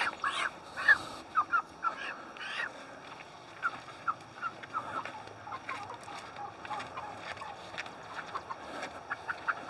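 Cornish Cross meat chickens clucking in short, scattered calls, a little more often in the first few seconds.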